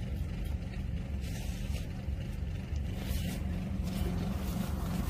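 Wind buffeting a phone microphone: an uneven low rumble under a steady outdoor hiss.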